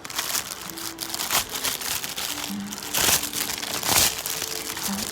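Packaging crinkling and rustling as items from a slime kit are handled, irregular and loudest about three and four seconds in.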